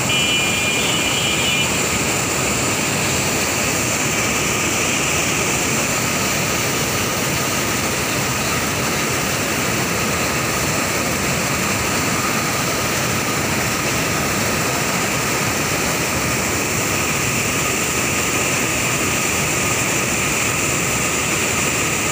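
Fast, turbulent river water rushing and churning through a channel, a steady, unbroken wash of noise.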